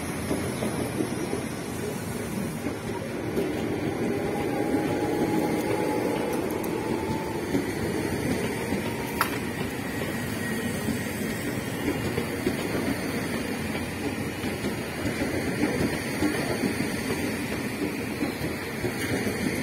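Tokyu 8500 series electric commuter train running past as it pulls out of the station: a steady rumble of wheels on rail, with a faint, slightly rising motor whine in the first half and a single sharp click about nine seconds in.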